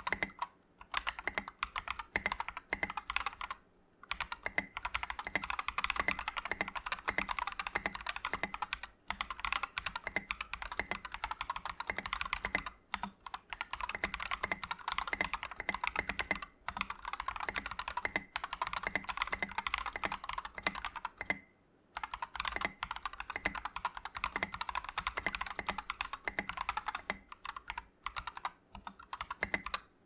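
Fast typing on an SK87 tenkeyless mechanical keyboard fitted with stock, unlubed Akko CS Ocean Blue switches and doubleshot ABS keycaps in an ABS plastic case. The key clacks run on steadily, with brief pauses every few seconds.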